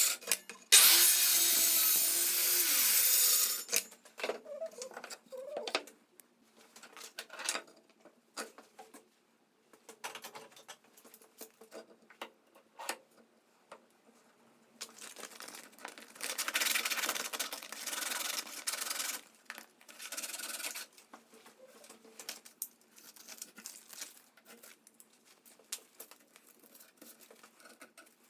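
A hand tool scraping along wood in two spells, one in the first three seconds or so and another from about 15 to 21 seconds in, with scattered knocks and clicks of wood being handled between them.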